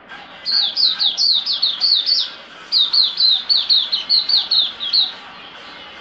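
Red-whiskered bulbul calling in two quick runs of short, sharp chirps, each note dropping in pitch, about four a second, with a brief pause between the runs.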